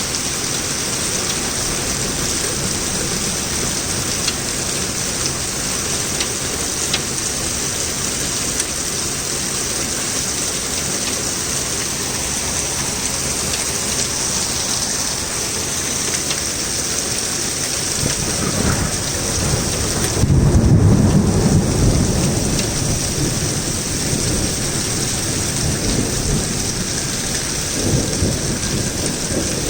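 Torrential rain pouring steadily, with a low rumble of thunder that builds about two-thirds of the way through and is loudest a few seconds later, then a smaller rumble near the end.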